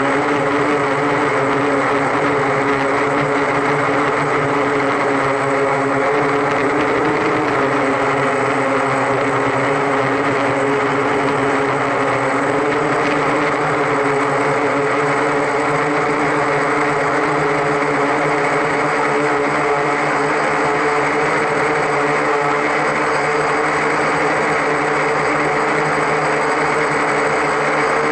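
Octocopter's eight electric motors and propellers running in flight: a steady hum made of several tones, with an even rush of air.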